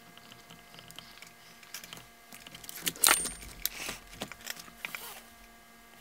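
Small metallic clicks and rattles from hands working the switches and handling the metal chassis of a 1960s transistor radio during switch cleaning, sparse at first, then a busy clatter with the loudest burst about three seconds in.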